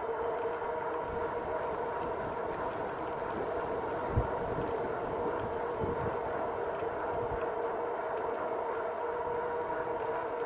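Rad Power Bikes RadMini Step-Thru fat-tyre electric bike riding downhill at speed: a steady whine over a rush of noise, with light rattling ticks. A few low thumps come about four, six and seven seconds in.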